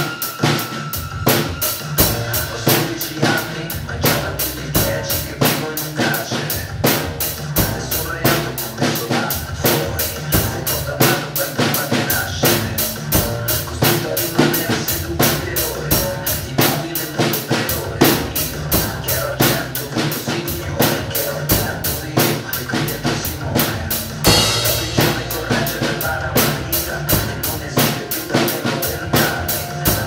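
Tamburo T5 drum kit played in a steady pop-rock groove of bass drum, snare and cymbals, about three strokes a second, over the song's backing track. A cymbal crash comes about 24 seconds in.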